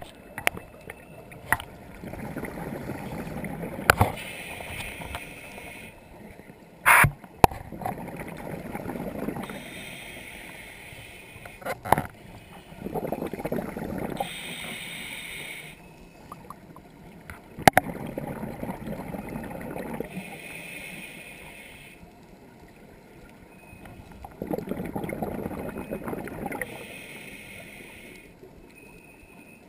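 Scuba diver breathing through a regulator underwater: a hiss on each inhale, then a rumble of exhaled bubbles, about five breaths in turn. A few sharp clicks and knocks fall between them, the loudest about seven seconds in.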